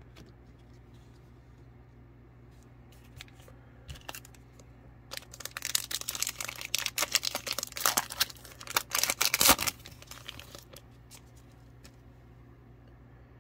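Foil wrapper of a trading-card pack being torn open and crinkled by hand: a run of crackling and ripping from about five seconds in until about ten seconds, loudest just before it stops.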